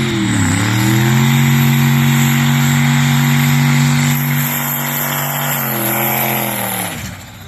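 Turbocharged 5.3-litre V8 of a burnout pickup, revved and held at a steady high pitch after a brief dip about half a second in; near the end the revs fall away.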